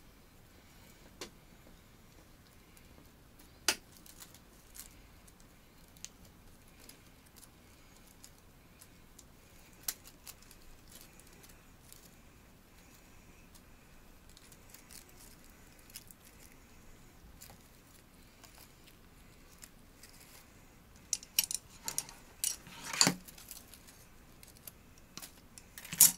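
Scattered small clicks and metallic clinks of bonsai wire and tools being handled as a branch is wired by hand, with a quick cluster of sharper, louder clicks near the end.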